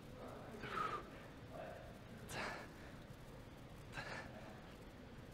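A man's hard breaths under strain, four in a row about a second and a half apart. They come with the effort of dumbbell lateral raise reps.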